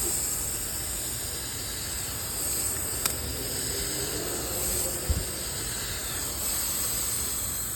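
New Rain Bird irrigation sprinkler heads spraying water with a steady hiss. There is a sharp tick about three seconds in and a low thump about five seconds in.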